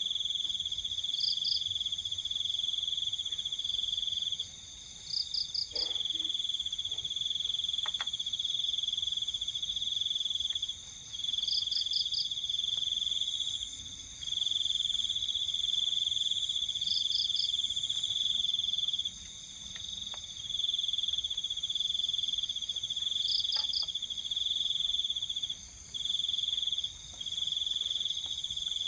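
Night insect chorus: a steady, high cricket trill that breaks off briefly every few seconds, with a second insect's short chirp of three or four quick pulses repeating about every five to six seconds, and fainter high-pitched insect buzzing behind.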